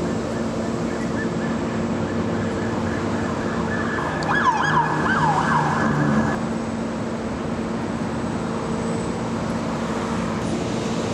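An emergency vehicle's electronic siren sounds a short burst of quick rising yelps about four seconds in, lasting about two seconds before cutting off suddenly. Under it is a steady hum of idling engines and road traffic.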